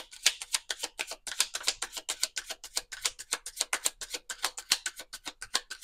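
Rapid, sharp, fairly even clicking, about nine clicks a second.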